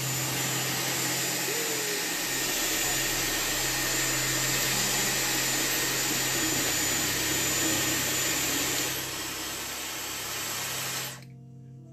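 Dyson Airwrap hair styler blowing hard through its curling barrel as a section of hair is wound around it: a loud, steady rush of air. It drops slightly about nine seconds in, then cuts off suddenly near the end.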